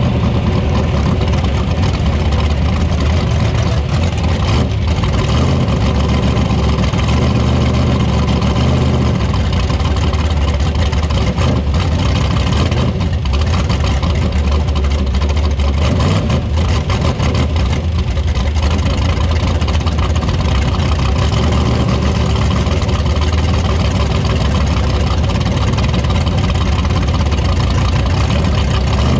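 Mega truck's engine running steadily and loudly, heard from inside its open roll-cage cab.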